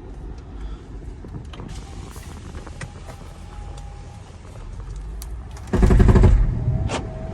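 Mercedes-Benz GL450 under way with steady engine and road noise, then about six seconds in a loud burst of rapid knocking lasting under a second as it pulls away. It is the sign of a stretched, loose transfer case chain jumping on its sprockets under hard acceleration.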